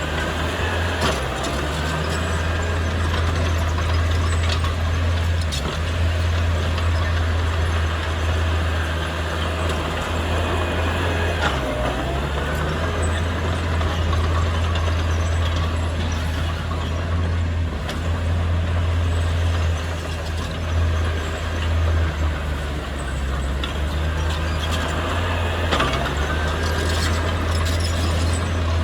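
Heavy diesel engine of earthmoving machinery running steadily under load, its low drone dipping and shifting briefly a few times, with occasional metallic clanks over a rough mechanical rumble.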